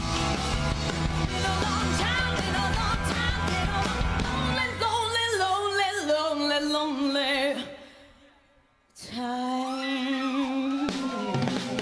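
Live rock band with a female lead singer. About four and a half seconds in, the bass and drums drop out and her voice carries on over light backing; the music stops almost dead for about a second, then she comes back in on a long held note with vibrato, and the full band kicks back in near the end.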